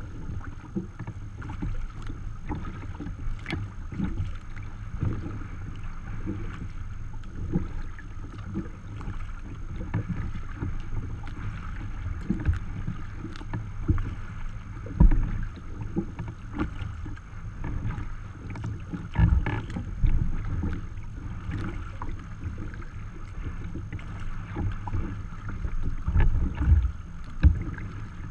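Water lapping and slapping against a sea kayak's hull as it is paddled through choppy water, with wind rumbling on the microphone. Now and then there is a louder slap or gust, several of them near the end.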